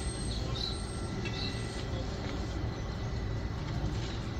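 Steady low rumble of outdoor background noise, with a few faint short high chirps in the first couple of seconds.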